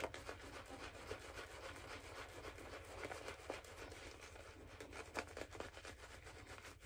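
Shaving brush being swirled over a lathered face: a faint, continuous bristly rubbing with many small ticks from the wet lather.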